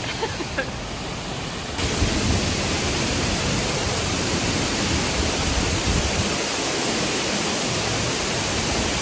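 Lower South Falls rushing in a steady, loud roar of falling water, abruptly louder about two seconds in.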